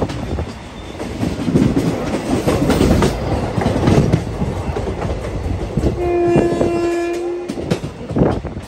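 Train running at speed, heard from on board: a steady rumble of wheels on rails with scattered clacks over the rail joints. A little past the middle, a train horn sounds once, a steady single pitch held for about a second and a half.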